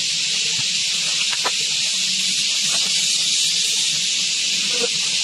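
A steady high hiss with a few faint clicks.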